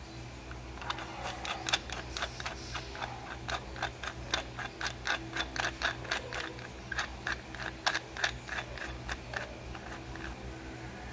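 Metal tubes of a gate-type suppressor clicking and ticking as they are twisted and slid against each other in the hands: sharp, irregular clicks about three or four a second, dying away near the end, over a steady low hum.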